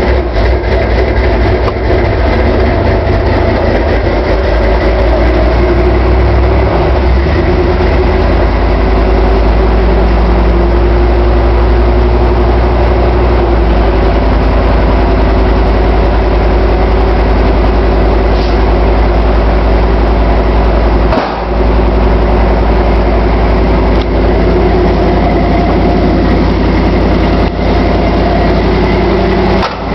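1978 Ford Bronco's 460 cubic-inch big-block V8 running at a steady idle just after a cold start. The note shifts a couple of times in the first half, and there is a brief dip about two-thirds of the way through.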